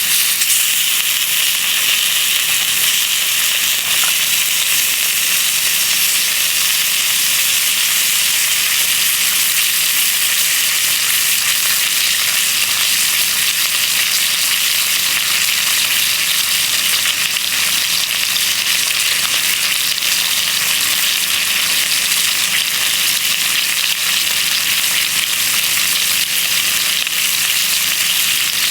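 Bacon and eggs sizzling steadily in a frying pan over a rocket stove: a continuous frying hiss with fine crackle.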